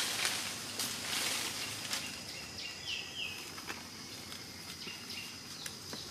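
Outdoor ambience: a steady high insect drone with a few short bird chirps about three seconds in. Leafy branches rustle loudly at the start and again about a second in, with a few light snaps and clicks later.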